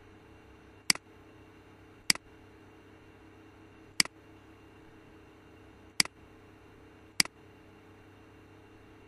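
Computer mouse button clicked five times at uneven intervals, each a sharp double tick of press and release, over a faint steady hum.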